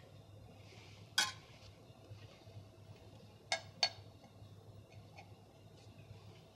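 Knife work on a fish fillet: soft scraping strokes of the blade, with a sharp metallic clink about a second in and two more clinks in quick succession about three and a half seconds in. A low steady hum runs underneath.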